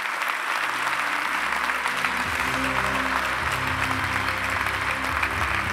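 Audience applauding. Music comes in underneath about half a second in, and its low bass notes fill out about two seconds in.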